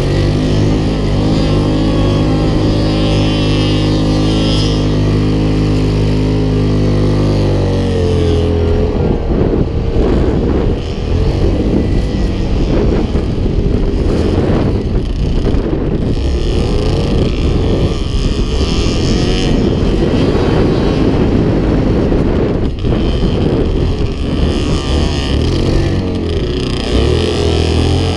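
Yamaha Grizzly 700 quad's single-cylinder four-stroke engine running under way, with wind on the microphone. It holds a steady note for the first several seconds, then shifts in pitch and goes rough and uneven for the rest as the throttle changes over the sand.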